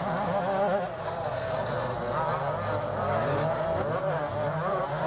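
Two-stroke 125cc motocross motorcycle engines revving, their pitch rising and falling through the gears as the bikes accelerate and ease off across the dirt track.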